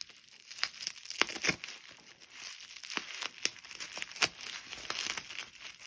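Plastic packaging being cut open with scissors and handled: irregular crinkling and rustling with scattered sharp clicks.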